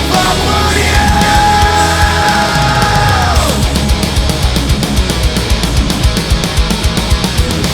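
Loud heavy metal music: a held guitar note bends down and stops about three and a half seconds in, then fast, driving drums take over.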